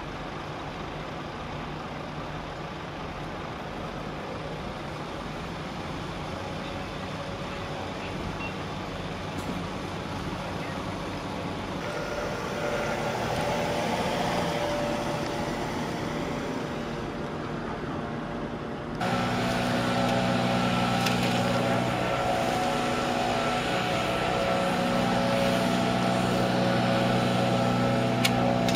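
Emergency vehicles' engines running at idle: a steady engine hum at first, growing louder around the middle as an ambulance's engine runs close by. Then, after a sudden change, a louder steady diesel drone with several held tones, from an idling fire truck.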